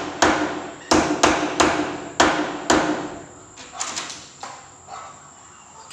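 Six sharp hammer blows in the first three seconds, each ringing briefly, then a few faint knocks. This is work on a wooden door while a new door knob lockset is being fitted.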